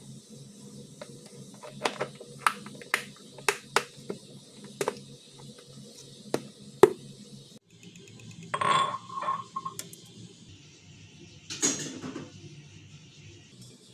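Sharp plastic clicks and taps as a food container with a clip-lock plastic lid is handled and its lid pressed on and snapped shut, followed by a couple of duller clatters as it is moved and set down on the tiled counter.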